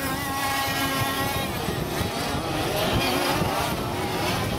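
Several large-scale radio-controlled off-road buggies racing, their small two-stroke petrol engines running together and revving up and down as they accelerate and brake through the corners.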